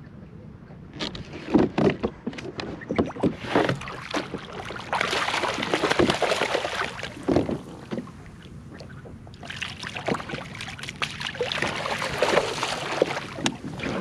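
Water splashing and sloshing beside a kayak as a hooked fish thrashes at the surface and is scooped into a landing net. A quick run of knocks and splashes comes first, then two long spells of churning splashing.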